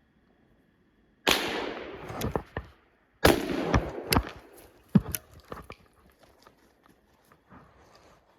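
Two rifle shots about two seconds apart, each with a second of echo trailing off, followed by a few sharp knocks.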